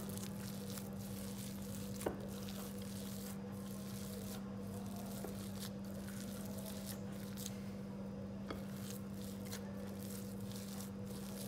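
Bare hand squishing and mixing mashed boiled potato with chopped onion, green chillies and coriander in a bowl: soft, irregular squelches, with one small knock about two seconds in, over a steady low hum.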